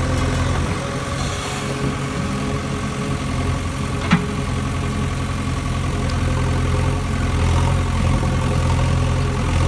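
An engine idling steadily with a low, even hum, and one sharp click about four seconds in.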